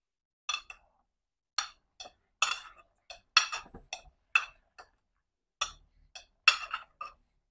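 A cooking ladle and spatula knocking and clinking against an aluminium pot as boiling greens are stirred: a string of irregular sharp clicks, several close together in places.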